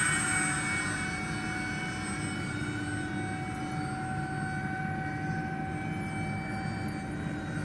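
Electric ducted fans of a radio-controlled Airbus A330 model airliner whining in flight. The whine drops slightly in pitch and fades over the first second as the plane passes and moves away, then holds steady.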